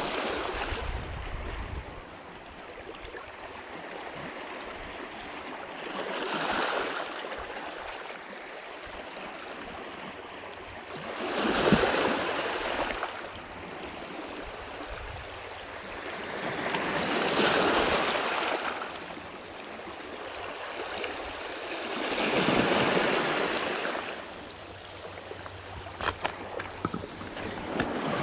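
Small waves breaking and washing over a pebble shore, swelling and ebbing about every five seconds over a steady wash of water.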